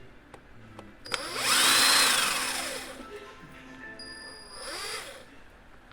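A power drill spinning up and winding down, once for about a second and a half and again briefly near the end.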